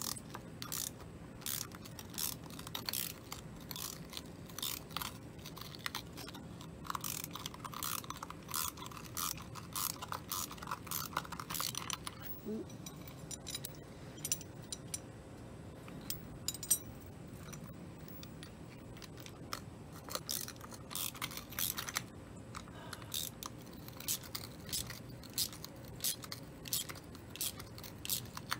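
Hand ratchet wrench clicking in short runs as it is swung back and forth, backing a stuck nut off a loose exhaust manifold stud held by two nuts jammed together. The clicking thins out for a while partway through, then picks up again.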